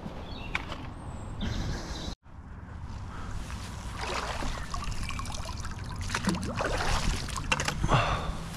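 Water trickling and dripping off a magnet-fishing magnet and the scrap stuck to it as it is hauled by rope up out of a canal, with a few knocks as the catch comes onto the bank.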